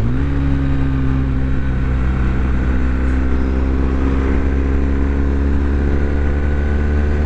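BMW R1200GS Adventure's boxer twin engine pulling at a steady cruising speed. Its pitch rises briefly at the start and then holds level, over wind and road noise.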